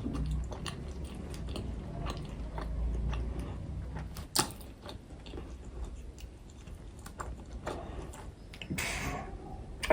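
Close-miked chewing of pork momo (dumplings), with scattered small mouth clicks and one louder click about halfway through.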